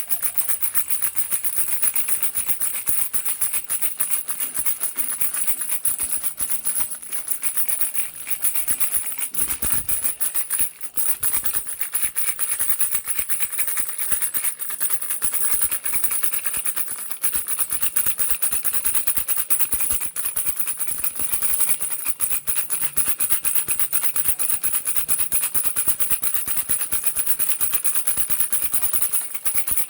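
Baby rattle shaken rapidly and without pause: a dense stream of tiny clicks, with a brief lull about ten seconds in.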